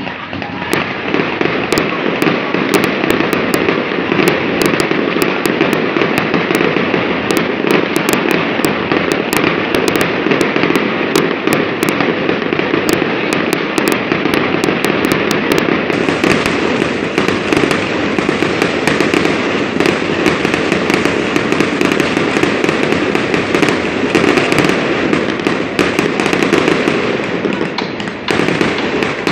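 Ground firework fountains spraying sparks: a steady rush of noise with dense crackling and many sharp pops throughout.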